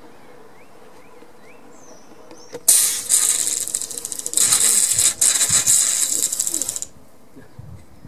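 Motion-activated water-cannon sprinkler firing: a hissing spray with rapid ratcheting clicks as the head sweeps. It starts about three seconds in, breaks off briefly, and cuts off about four seconds after it began.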